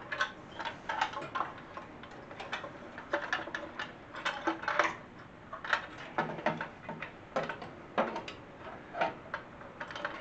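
Irregular metallic clicks and knocks from a metal steering/dash tower being handled and fitted down over a garden tractor's steering column.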